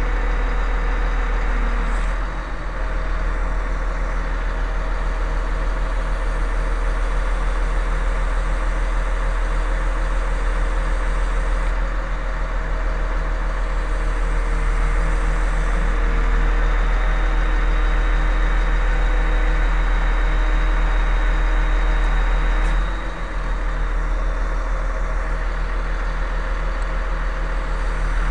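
Engine of a crane service truck running steadily at idle. The level dips briefly about two seconds in and again after about 23 seconds.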